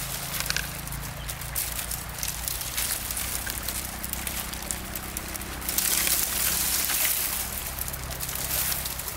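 Engine-driven water pump running steadily, with water splashing and sloshing over it; the splashing grows louder about six seconds in.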